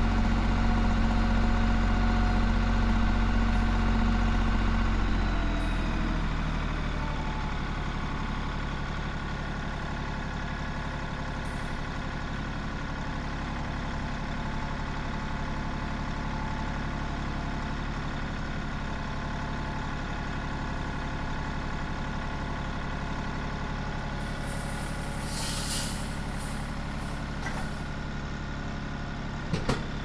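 Tractor engine running steadily. About six seconds in, the revs drop and it settles to a lower, quieter steady run. A brief hiss comes near the end.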